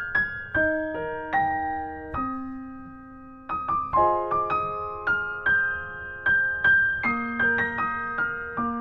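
Solo piano music, single notes and chords struck and left to ring, at a gentle pace.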